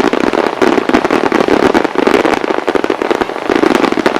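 Starmine fireworks barrage: aerial shells fired and bursting in rapid succession, a dense run of many bangs a second without a break.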